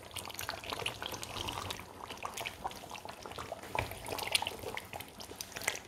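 Pot of thick Nigerian tomato stew simmering on the gas, bubbles popping in many small, irregular blips.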